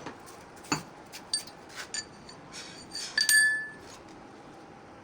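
A series of light metallic clinks and taps, like tools or small metal parts knocked together during repair work; the loudest, about three seconds in, rings briefly with a clear tone.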